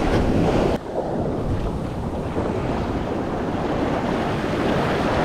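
Wind buffeting the microphone over the wash of sea surf breaking on the shore, with a louder gust in the first second.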